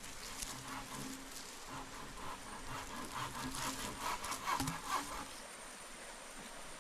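Rhythmic scraping strokes that go on for about five seconds, then stop.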